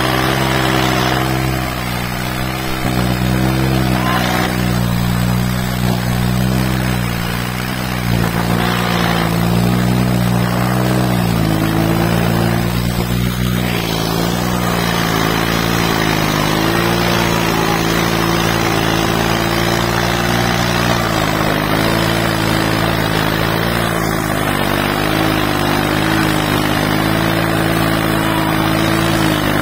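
New Holland 3630 tractor's diesel engine running hard under load, its note stepping up and down several times as it labours.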